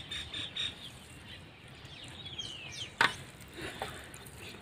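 Open-field ambience: an insect's pulsing high chirp at first, a few short falling bird calls near the middle, and one sharp click about three seconds in.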